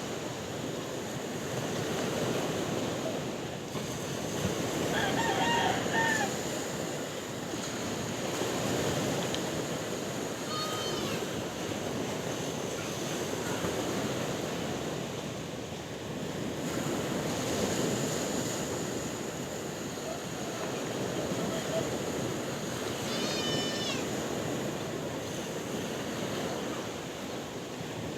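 Sea waves washing onto the shore in steady surges, with three short animal calls over the top, about five, ten and twenty-three seconds in.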